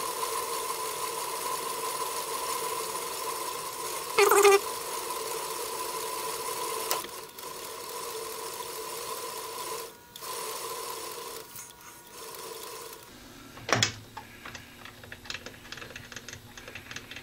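Metal lathe running with a steady whine while a parting tool is hand-fed into a three-quarter-inch round bar, with a brief loud burst about four seconds in. The lathe is switched off about 13 seconds in, a single sharp knock follows, then light scattered ticks as the chuck comes to rest.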